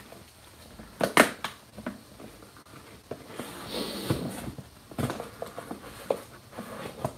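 Scissors cutting and scraping along the taped seam of a cardboard box, with sharp snaps and knocks of cardboard, the loudest about a second in, and a longer rasping scrape around the middle.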